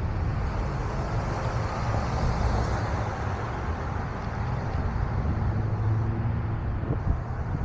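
Street traffic: vehicles passing through an intersection, a steady low rumble.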